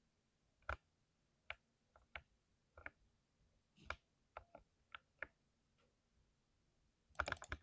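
Mechanical keyboard keys being pressed one at a time, about a dozen separate keystroke clicks spaced irregularly, then a quick run of rapid typing near the end.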